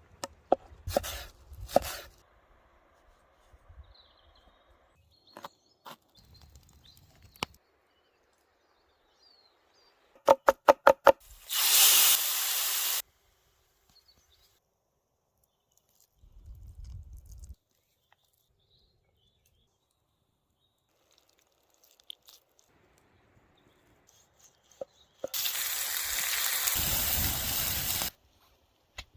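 Outdoor cooking sounds: scattered knocks, a quick run of about six sharp knocks, then two loud bursts of hissing that start and stop abruptly.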